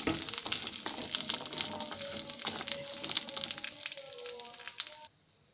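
Boiled chickpeas sizzling in a little oil in a nonstick kadai, stirred with many small clicks and scrapes against the pan. The sizzle fades gradually and cuts off suddenly about five seconds in.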